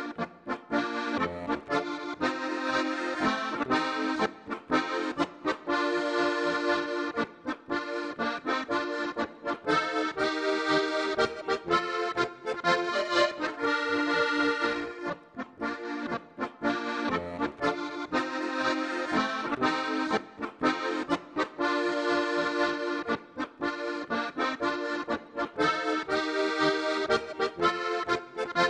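Instrumental Alpine folk music led by an accordion, playing in a steady rhythm with brief pauses between phrases.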